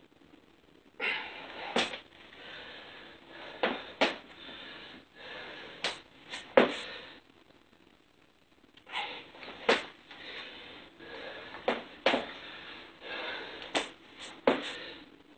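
A person doing burpee jacks: forceful, hissy breaths together with sharp impacts, in bursts roughly every two to three seconds, with a short pause about halfway through.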